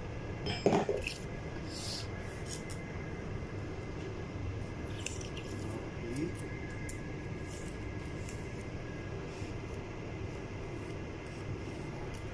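Light clicks and a short clatter about a second in from hand tools being handled on the traction motor's brake assembly, over a steady room hum.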